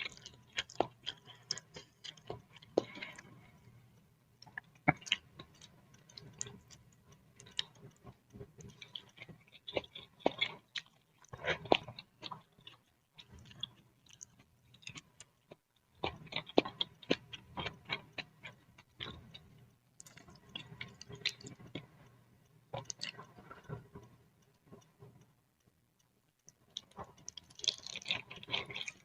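Close-up chewing of boiled instant noodles in soup, with wet mouth clicks and smacks coming in bursts separated by short pauses.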